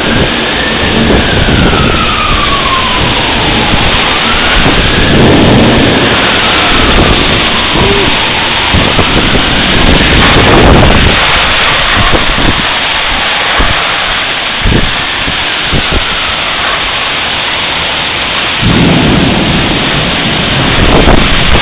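Heavy rain pouring close to the microphone in a thunderstorm, with thunder rumbling. A faint rising-and-falling wail comes and goes every few seconds.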